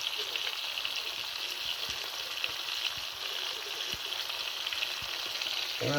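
Zander head and onion frying in oil in a pan: a steady sizzle with fine crackling.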